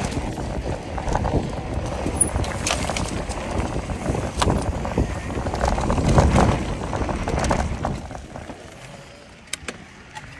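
Mountain bike riding down a dry dirt singletrack: tyres rolling over loose dirt, with wind rushing on the handlebar-mounted microphone and clicks and rattles from the bike over bumps. The noise drops off about two seconds before the end as the bike eases.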